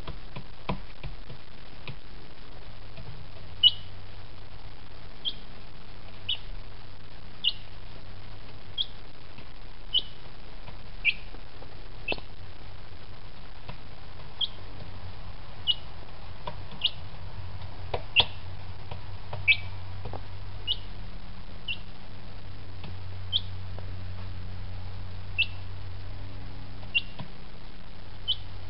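A week-old chick peeping: short high cheeps, each falling in pitch, about one a second, over a steady low hum. A few sharp taps come from its beak pecking at the crumb feed in the dish.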